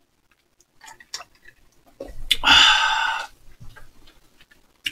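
Light clicks and taps of forks on a cake plate while eating, with a loud, breathy noise lasting about a second about two and a half seconds in.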